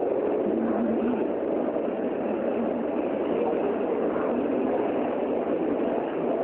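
Steady din of a busy transit-station concourse: the mixed noise of many passengers walking, with a vehicle-like background rumble and no clear voices.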